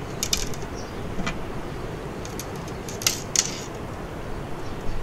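Short, scratchy rustles and clicks of monofilament fishing line and small metal tackle being handled as a knot is tied. There is a cluster just after the start and a sharper pair around three seconds in, over a steady low background rumble.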